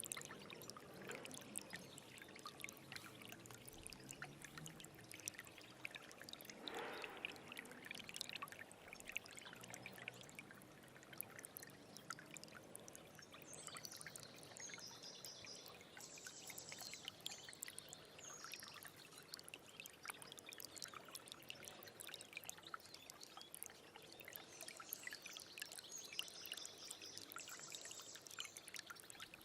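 Small stream trickling and gurgling, a faint steady rush of water full of small drips and splashes. A bird's high trilling call comes twice, midway and near the end.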